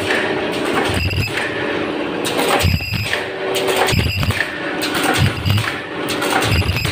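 Fully automatic surgical face-mask machine running: a steady motor hum with short mechanical clacks and brief high-pitched squeals that recur every second or two as the machine cycles.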